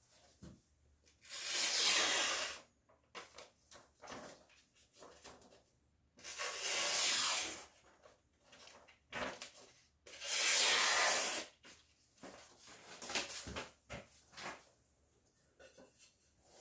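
Three long scraping strokes of a kitchen knife blade drawn across an abrasive surface, each lasting about a second and a half, with light clicks and taps of handling between them.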